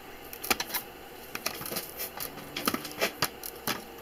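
Irregular light clicks and taps, about eight spread over a few seconds, with a faint steady background between them.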